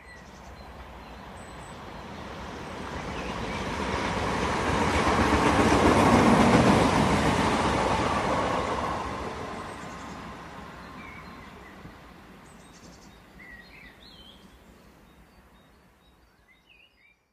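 Running noise of a passenger train heard from the coach window, a rush of wheels on rail that swells to its loudest about six seconds in and then fades away. A few bird chirps come through near the end.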